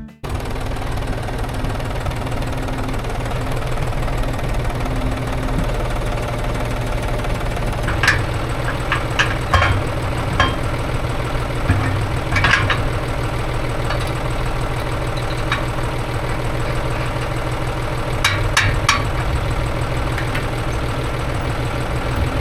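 Tractor's diesel engine running steadily at idle, with a few short sharp clanks or clicks here and there.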